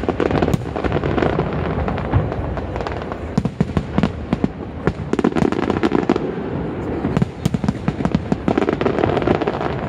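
Aerial fireworks display: a dense run of shells bursting, with many sharp cracks and bangs over a continuous rumble.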